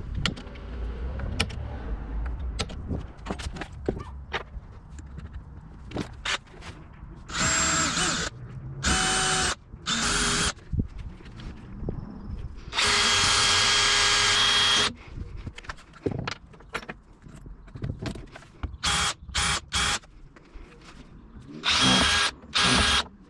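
Power drill running in a series of short bursts, about ten in all, most under a second and one lasting about two seconds, with clicks and knocks of handling between them.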